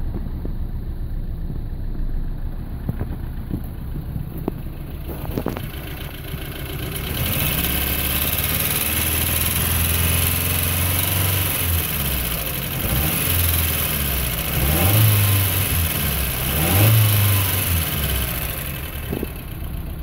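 1985 Toyota Starlet's 1.0-litre 1E four-cylinder engine running with a misfire, louder and closer from about seven seconds in. The pitch rises briefly twice near the end, as if the engine is revved.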